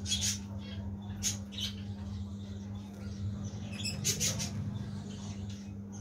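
Caged budgerigars giving short, harsh chirps and squawks, a few scattered calls with a cluster about four seconds in, over a steady low hum.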